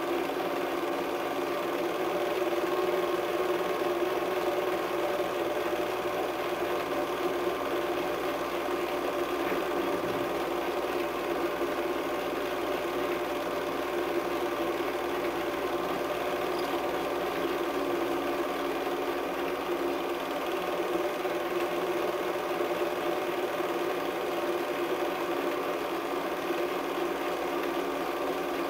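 Film projector running with a steady mechanical hum.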